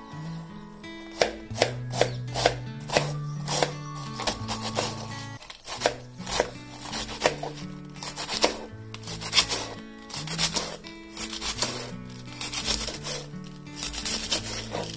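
Kitchen knife shredding cabbage on a plastic cutting board: quick, uneven strokes that start about a second in, each blade strike cutting through the leaves onto the board. Background music plays underneath.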